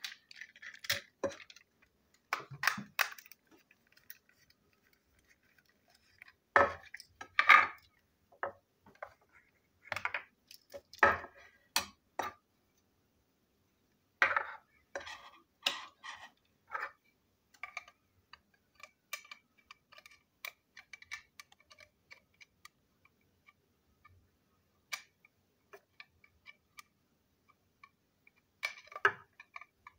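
Plastic clicks and knocks as a toy train engine and its tender are picked up, handled and set down on a table, loudest in the first half. Then a long string of faint light ticks, with a short burst of clatter near the end.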